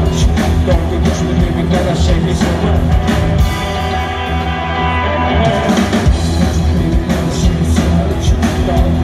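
Live rock band playing loud on electric guitar, electric bass and drums, with a steady beat. The bass and low drums thin out for a moment midway, and the full band comes back in about six seconds in.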